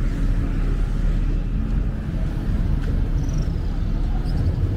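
Road traffic: a steady low rumble of cars and motorbikes passing on a city street.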